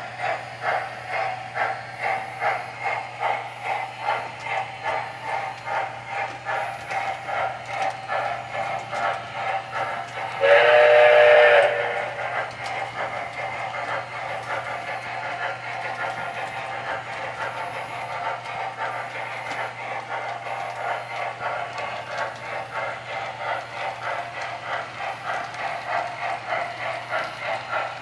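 Model Erie Triplex steam locomotive's onboard sound system playing steady rhythmic steam chuffing as the train runs, over a steady low hum. About ten seconds in, the locomotive's whistle blows once for about a second and a half.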